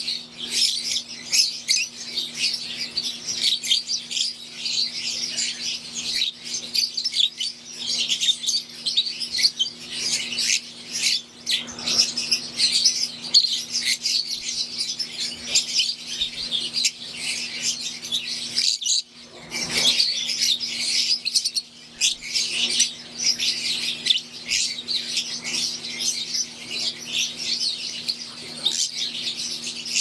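A flock of Fischer's lovebirds chirping non-stop in rapid, high-pitched calls, with a brief lull about two-thirds of the way through.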